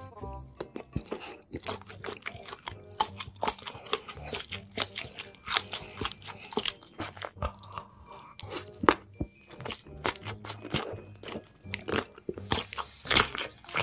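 Close-miked ASMR eating of sausages: the casings snap with crisp crunches as they are bitten, followed by wet chewing, many sharp crunches in irregular quick succession.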